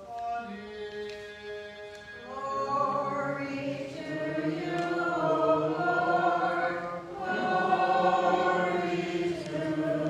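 Byzantine liturgical chant sung a cappella by several voices. It starts thinly and swells fuller and louder about two seconds in as more voices join.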